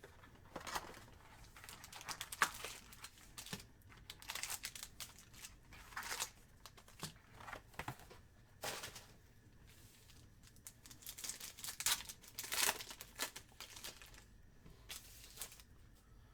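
Trading card packaging being torn open and crinkled by hand: short, irregular ripping and rustling of wrappers, with several louder rips around the middle and again toward the end.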